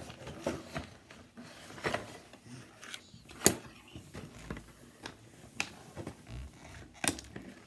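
Hands handling cardboard and plastic toy packaging: scattered small clicks, taps and rustles, with one sharper click about three and a half seconds in and another near the end.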